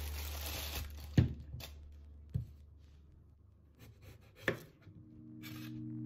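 Rustling in the first second, then three separate sharp knocks spread over the next few seconds, under quiet background music that fades out and comes back in near the end.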